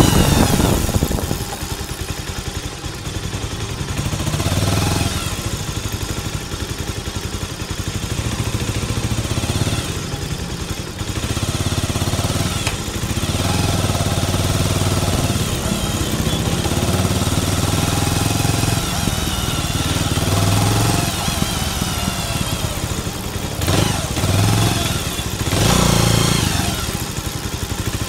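Motorcycle engine and exhaust heard up close beside the rear silencer while riding, the engine note rising and falling several times as the bike speeds up and eases off.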